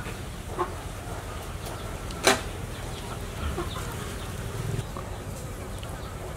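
Outdoor background with scattered faint short bird calls, and one sharp knock about two seconds in.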